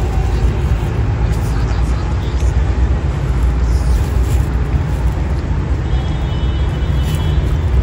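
Wind buffeting the microphone: a loud, steady low rumble with no breaks.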